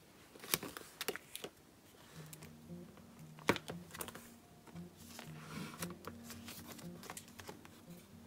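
Clear plastic pocket-page sleeves in a ring-bound photo album crinkling and clicking as the pages are handled and turned, in irregular sharp clicks. Soft background music with low held notes comes in about two seconds in.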